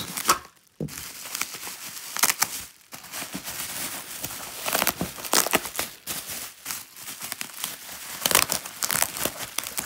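Bubble wrap crinkling and crackling as it is handled and pulled by hand, in dense irregular crackles with a short lull about half a second in.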